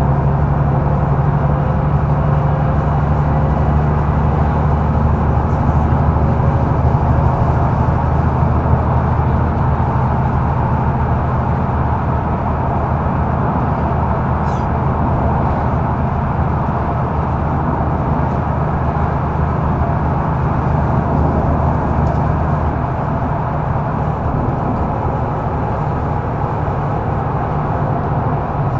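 Mercedes-Benz Citaro O530 facelift intercity bus under way, heard from inside: a steady engine drone with road noise. About 23 seconds in, the deepest part of the engine note drops away.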